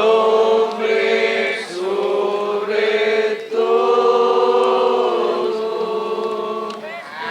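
Voices chanting in long, held notes, the phrases breaking off briefly about every two seconds.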